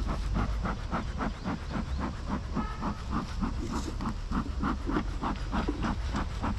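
Bee smoker's bellows pumped over and over, puffing smoke in short hissing bursts about three times a second into a wild bee nest hole in the ground to calm the bees.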